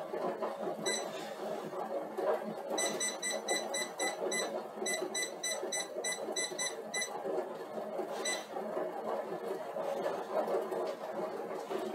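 Electronic beeper sounding rapid short high beeps, about five a second, in two runs between roughly three and seven seconds in, with single beeps about a second in and about eight seconds in, over a steady low whir. The beeping signals the end of the 160-watt work stage and the start of cool-down.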